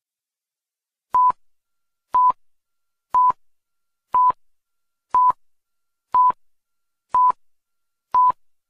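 Electronic beeps: eight short, identical steady tones at one pitch, one a second, starting about a second in.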